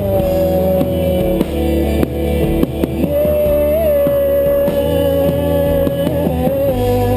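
Live band music in an instrumental passage: guitar, bass and drum kit, with one long held note sustained over a steady drum beat.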